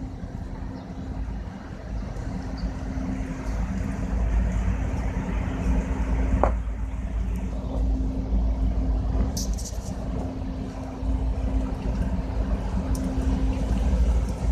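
Diesel dump truck engine idling steadily with a low rumble and a constant hum. There is one sharp click about six and a half seconds in.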